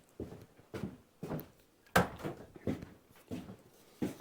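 A string of irregular knocks and clunks, about eight in all, the loudest about two seconds in: wooden pieces being handled and set down on the workbench.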